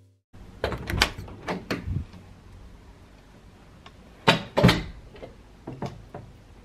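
Scattered knocks and clunks in a small room, a cluster in the first couple of seconds and the two loudest close together a little past the middle.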